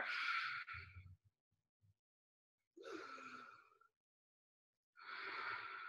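A woman breathing slowly and audibly while resting after a yoga flow: a breath trailing off at the start, another about three seconds in and a longer one near the end, with quiet between.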